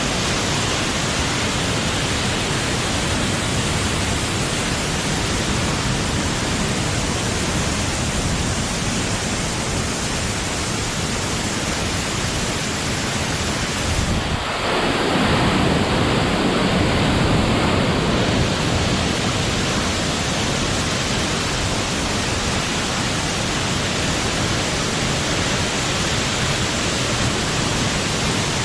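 Waterfall: a steady, loud rush of falling water. About halfway through, for roughly four seconds, the rush turns deeper and a little louder.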